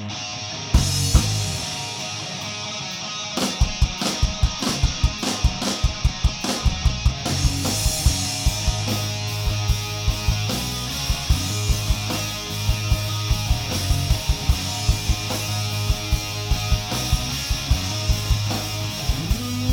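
Live rock band playing an instrumental passage of electric guitar and bass, with a steady drum-kit beat that comes in about three and a half seconds in.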